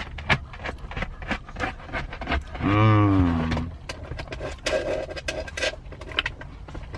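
Plastic spoon scraping and clicking in a Blizzard ice cream cup while eating, with a short hummed voice sound about three seconds in.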